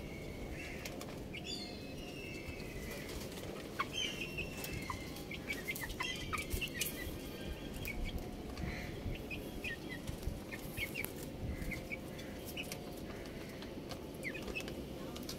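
Young chickens chirping and peeping in many short, high notes, some gliding downward, over a steady low background rumble.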